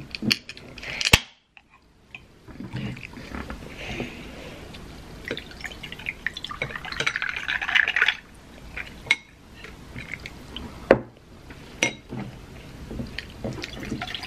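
A tall can of iced tea is cracked open with a sharp click about a second in, then poured over ice into a glass in a steady splashing stream. After a short break near the middle it is poured again, more quietly, into a glass jar.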